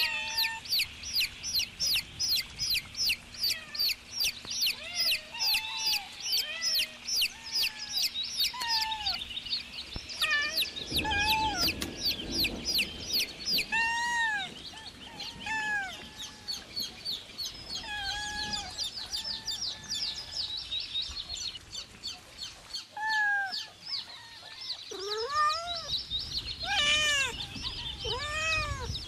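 Young chickens peeping: quick high peeps about four a second for the first ten seconds, then slower, lower arching calls through the rest, with a brief low rumble a little after ten seconds.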